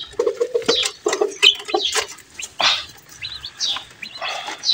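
Birds chirping in short, repeated calls, mixed with a few light knocks and rustles.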